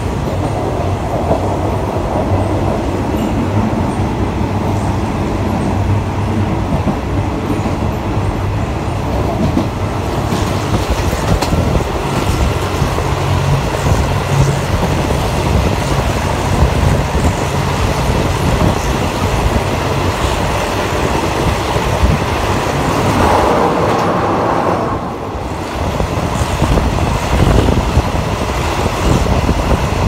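Passenger carriage of a moving train running along the line: a steady rumble of wheels on rails with frequent short knocks, briefly quieter near the end.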